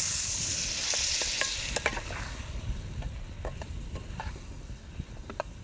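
Sliced radish, onions and green chillies frying in oil in a kadai, stirred with a metal spatula that scrapes and clicks against the pan. The sizzle fades over the first two seconds, leaving scattered spatula clicks.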